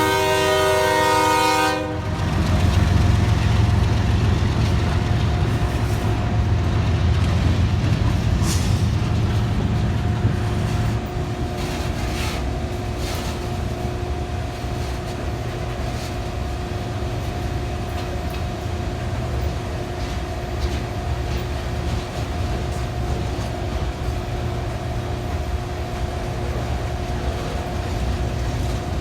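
CSX diesel locomotive's multi-chime air horn sounding a chord that cuts off about two seconds in. After it the locomotive's engine runs with a heavy low rumble that eases about eleven seconds in, over a steady hum and scattered clicks of wheels on rail joints as the train moves.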